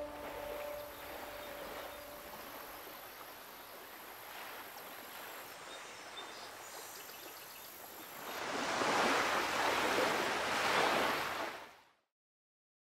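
The last piano notes of the score fade away, leaving a soft, even rushing noise like surf or running water. It swells louder about eight seconds in and then cuts off abruptly near the end.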